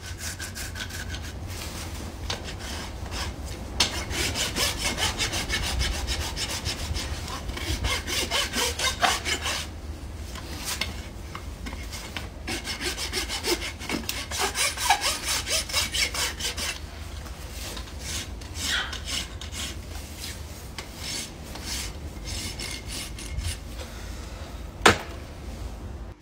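Farrier's rasp filing a horse's overgrown hoof wall in runs of fast back-and-forth strokes, several seconds each with pauses between. A single sharp click comes near the end.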